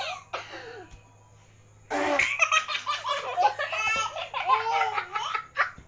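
A baby laughing hard in rapid bursts of belly laughter, starting about two seconds in after a short pause.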